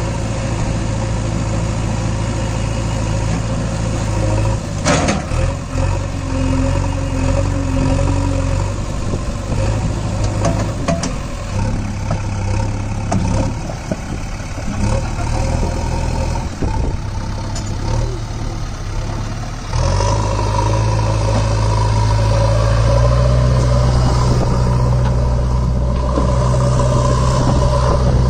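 Engine running steadily at idle, a sound effect laid over the push-along toys; about twenty seconds in it shifts to a louder, steadier note.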